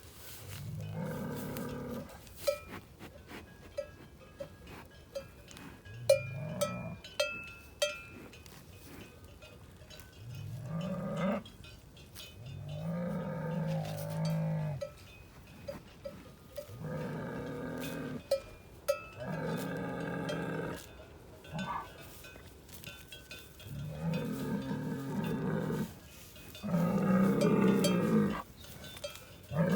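Cattle mooing, about eight long calls one after another, with cowbells clanking in the pauses.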